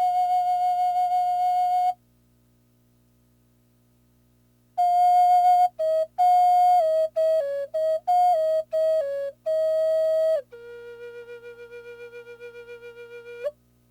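Solo flute melody: a long held note, then a gap of near silence, then a phrase of short stepping notes, ending on a softer, lower held note with a wavering vibrato.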